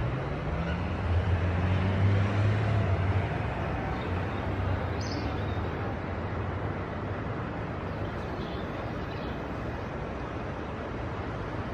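A motor vehicle's engine hums low, rising slightly in pitch at the start and fading out about five seconds in, over steady outdoor background noise.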